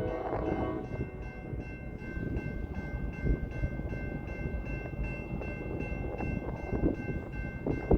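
Freight train rolling past, a steady rumble of freight cars on the rails with a few knocks near the end. The locomotive horn trails off in the first second, and a steady high ringing tone sits over the rumble throughout.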